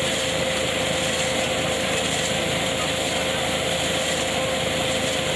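Tractor-driven hazelnut harvesting machine running steadily, with a constant whine over the even machine noise.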